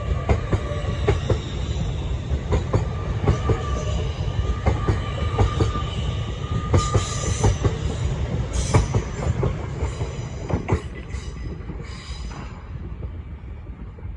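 A train running past, its wheels clicking over the rail joints with a steady rumble and squealing in high tones. The noise dies away over the last few seconds.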